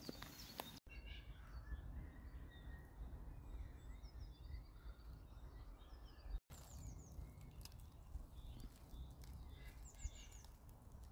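Faint outdoor ambience: a low rumble of wind on the microphone with small birds chirping, including a couple of short runs of quick falling chirps. The sound cuts out for an instant twice.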